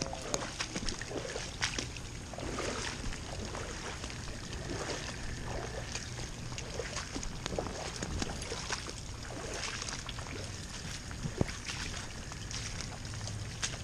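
Boots splashing and scuffing through shallow standing water on flooded pavement, then onto wet grass, in irregular steps over a steady background rush.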